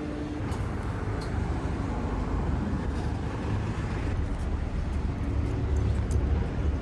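Low, steady rumble of vehicle noise in city ambience, growing a little louder toward the end, with a few faint light ticks over it.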